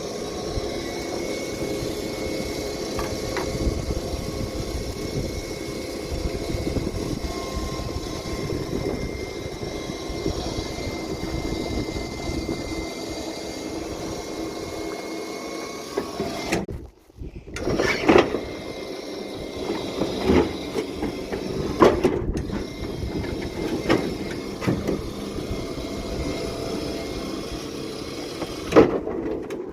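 Truck-mounted winch running steadily with a faint whine, hauling a riding lawn mower up the ramps into the pickup bed. After it stops, a series of loud sharp clunks and knocks follow, about one every two seconds, then a last one near the end.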